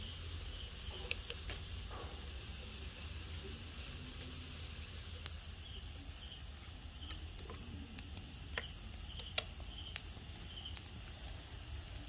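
Crickets chirping in a steady, high trill, over a low hum, with a few sharp clicks in the second half.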